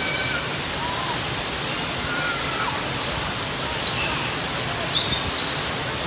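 Looking Glass Falls, a waterfall plunging onto rock, rushing steadily. Birds chirp faintly over it, with a quick run of chirps about four and a half seconds in.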